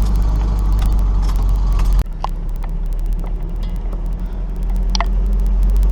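Four-wheel-drive vehicle driving slowly over rough, slick ground, its engine a steady low drone. About two seconds in the drone drops suddenly, then slowly builds back up, with a few light knocks and rattles.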